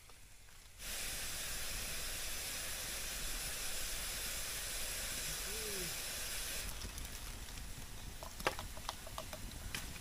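Steam hissing steadily from green bamboo tubes of food and water cooking over a wood fire. The hiss starts abruptly about a second in and drops away after about six seconds, followed by a few sharp crackles from the fire.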